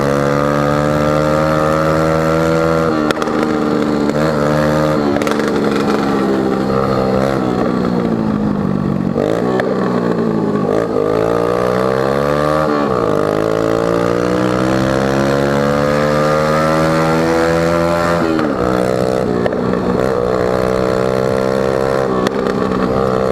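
Dafra Zig 100 scooter engine running loud through a bare exhaust pipe, its muffler end-piece broken off. The engine note holds mostly steady, sags and climbs back a few times as the throttle is eased and opened, with the last change about two-thirds of the way in.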